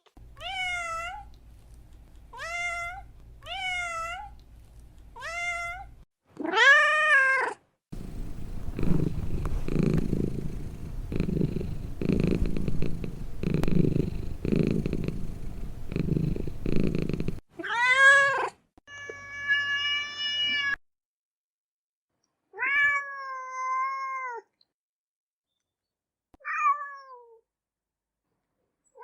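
Cats meowing, a run of separate calls that rise and fall in pitch, short and long, some loud. Between about 8 and 17 seconds a low, pulsing purr, rising and falling about once a second, takes over.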